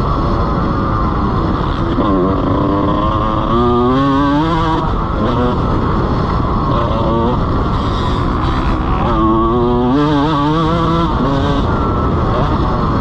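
Honda CR125 single-cylinder two-stroke motocross engine revving hard under the rider, its pitch warbling quickly up and down as the throttle is worked over the track, with two stronger surges of revs about four seconds in and again about ten seconds in. Wind rushes over the microphone underneath.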